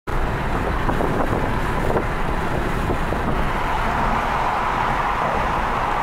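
Car driving at road speed, heard from inside the cabin: steady tyre and road noise with some wind. The noise changes about halfway through, a band of it growing louder, as the car drives into a tunnel.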